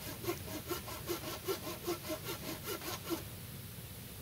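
Hand saw cutting through a log, in quick even strokes about five a second that stop about three seconds in.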